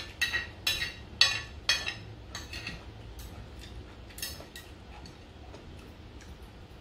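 A metal spoon clinking and scraping against a glass plate while rice is scooped up, a quick run of sharp clinks in the first three seconds, then a few fainter ticks.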